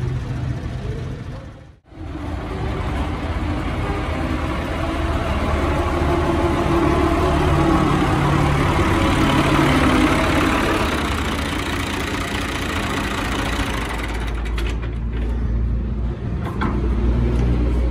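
New Holland 480 tractor's 55 hp three-cylinder diesel engine running under a test drive, after a brief break about two seconds in. It gets louder through the middle and settles to a deeper, steadier note in the last few seconds.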